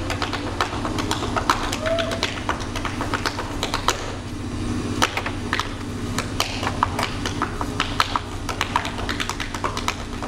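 Tap dancing: the dancer's shoes strike the stage floor in quick, uneven runs of sharp taps.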